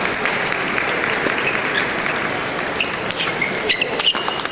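Spectators applauding across the hall, dying down after about three seconds. In the last second and a half a table tennis rally is heard: the celluloid ball clicks and pings sharply off the bats and the table about twice a second.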